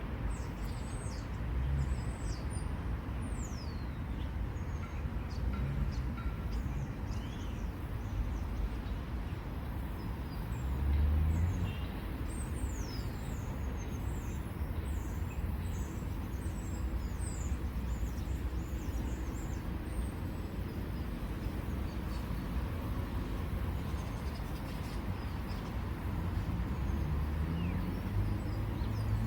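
Steady low rumble of distant road traffic, with a brief louder swell about eleven seconds in. Over it are many short, high, thin bird calls, most of them in the first half.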